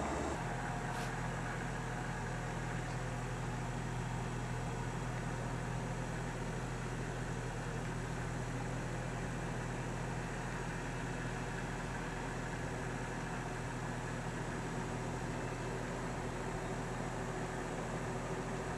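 Steady low hum under an even background hiss, with a faint click about a second in.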